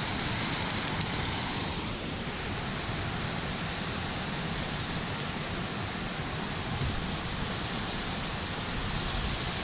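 Steady rushing of water pouring over a dam spillway, a hiss that eases slightly about two seconds in.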